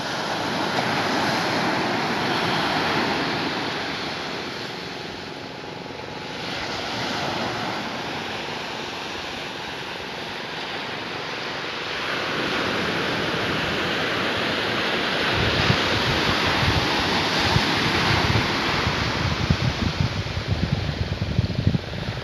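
Sea surf breaking and washing up a sandy beach, the rush of water swelling and fading over several seconds. In the last third a low, irregular rumble joins it.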